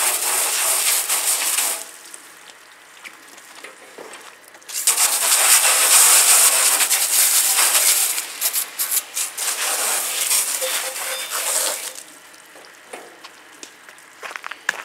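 Garden hose spray nozzle jetting water onto a metal go-kart frame, a loud hissing spatter. It stops about two seconds in, starts again near five seconds, and cuts off at about twelve seconds.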